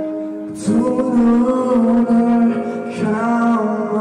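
A man singing long held notes into a handheld microphone over steady backing music; the singing drops briefly and comes back in sharply about half a second in.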